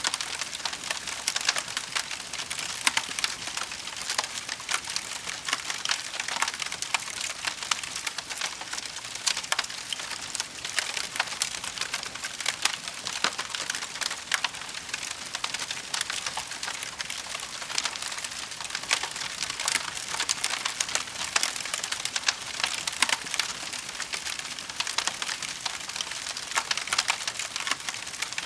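Wood fire in a fireplace crackling: a dense, unbroken run of small pops and snaps over a steady hiss.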